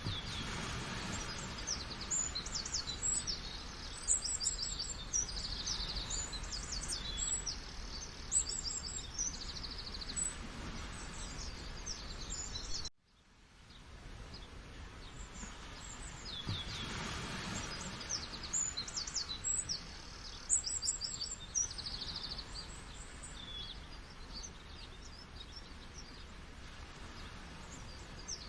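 Many small birds chirping and twittering over a steady rush of falling water. About halfway through, the whole sound cuts out abruptly and swells back in over a few seconds.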